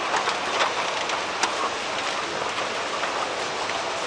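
Moving walkway running in an airport terminal: a steady hissing rumble with scattered light clicks.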